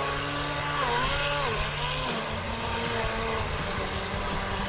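Pro Boat 17-inch Lucas Oil RC boat's electric motor whining at speed, its pitch dipping and rising again a couple of times with the throttle as the boat carves circles, over a hiss of water spray.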